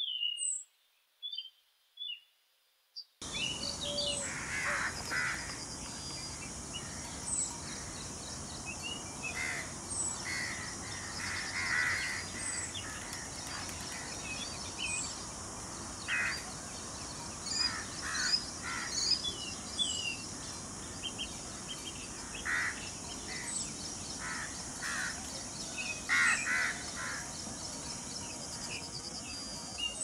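Outdoor bird chorus. A few isolated chirps at first, then from about three seconds in a steady high hiss carries many short high chirps and scattered short, harsher calls from several birds.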